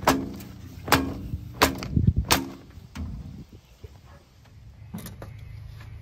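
Four sharp clanks, roughly two-thirds of a second apart, each ringing briefly, with dull thumps among them: someone climbing onto the metal cab of a JCB 3DX backhoe loader. A low steady hum runs underneath.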